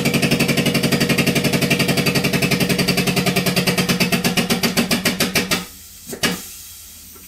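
Powered hydraulic pump running with a fast, even pulsing beat, about a dozen strokes a second over a steady hum, building pressure in the torque-test rig as it loads a ratcheting box-end wrench. It stops a little over five seconds in, followed by a couple of light knocks.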